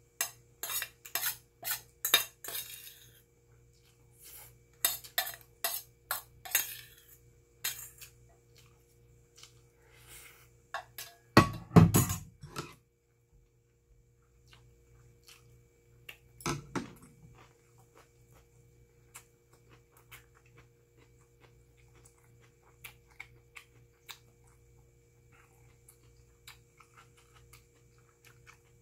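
Metal spoon scraping and clinking against a stainless steel bowl in quick strokes for the first several seconds. About twelve seconds in, the loudest sound: a heavier knock as the bowl is set down, then another knock a few seconds later and a few faint clicks.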